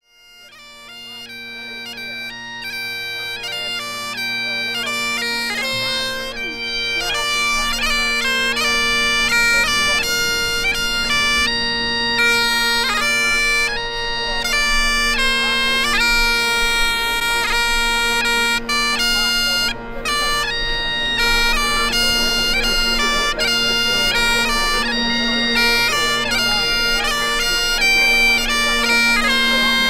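Great Highland bagpipes playing a tune over their steady drones, fading in over the first several seconds.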